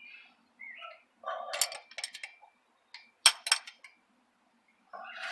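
Metal hand tools clinking and clicking against the drive shaft's flange bolts as they are worked loose, in a few irregular clusters of sharp clinks.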